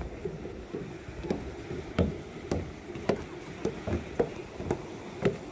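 Footsteps going down wooden stairs, a knock on the boards about twice a second.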